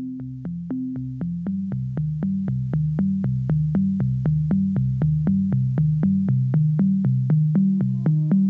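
Synthesizer music played back from cassette on a Tascam 414 four-track: a steady clicking beat about four times a second over a stepping bass line. It fades up as the channel faders are raised, and higher notes come in near the end. The repaired transport is playing the tape without eating it.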